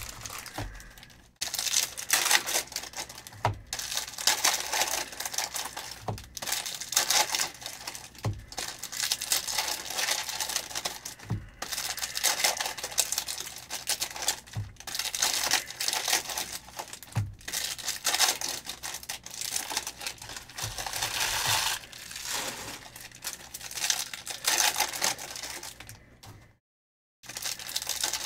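Trading-card pack wrappers crinkling and tearing as packs of 2022 Panini Select hobby football cards are ripped open and handled, with a soft knock every two to three seconds as cards or packs are set down on the table.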